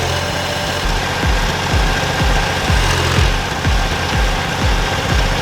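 Diesel engine of a Case skid steer running steadily, with a steady thumping beat of about two thumps a second over it from about half a second in.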